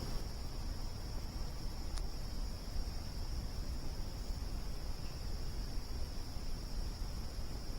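A steady, high insect trill runs throughout over a low rumbling noise. A wood campfire pops once about two seconds in.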